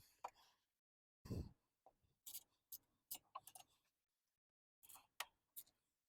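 Faint, irregular clicks of a socket ratchet tightening the radiator guard's mounting bolts, with one low knock of the tool against metal about a second in.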